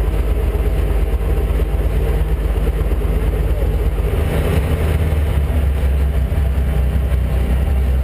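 Extra 300's Lycoming six-cylinder piston engine and propeller running steadily, heard from inside the cockpit. About halfway through the engine note shifts and grows a little fuller.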